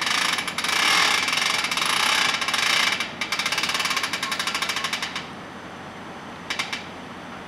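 Railroad air brakes venting: a loud hiss of compressed air starts suddenly, breaks into a rapid chatter after about three seconds and stops, followed by one short blast near the end.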